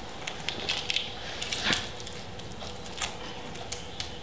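Faint handling noises: scattered small clicks and rustles over quiet workshop room tone.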